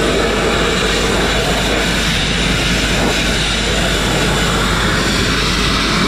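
Grit-blasting nozzle running continuously: a loud, steady rush of compressed air and abrasive striking the steel truck frame, stripping paint and rust to bare metal.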